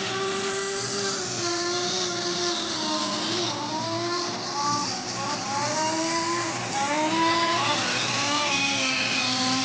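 Small two-stroke nitro engine (Kyosho GX-15) of an RC snowcat running, its revs rising and falling again and again as the throttle is worked.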